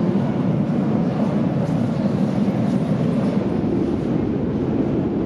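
Steady low rumble of underground metro machinery, even throughout, with no distinct knocks or announcements standing out.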